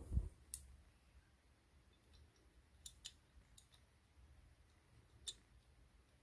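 A few soft bumps, then scattered faint clicks and taps of small die-cast toy car parts knocking together as they are handled and lined up for fitting by hand.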